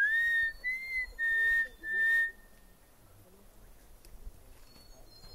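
A woman whistling a short tune by mouth: four clear held notes of about half a second each, the second rising and falling slightly, the others steady, stopping about two and a half seconds in.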